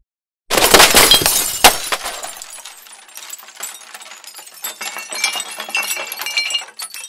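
Glass-shattering sound effect: a sudden loud crash about half a second in, a second sharp hit just after, then many small high clinks and tinkles of falling shards that thin out near the end.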